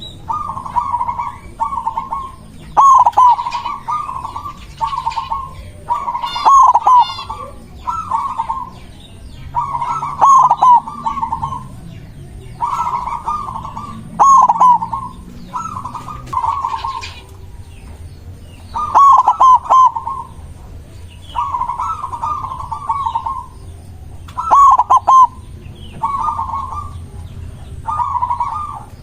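Zebra dove (perkutut) cooing: short, fluttering phrases of soft coo notes repeated about every one to two seconds, with a brief pause about two-thirds of the way through. Fainter, higher chirps from other small birds come in between the phrases.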